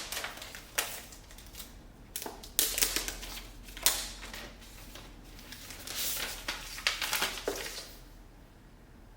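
Unboxing handling noise: irregular sharp clicks and knocks with short rustling bursts of packaging, as the computer and its packing are moved about on a desk. It dies down near the end.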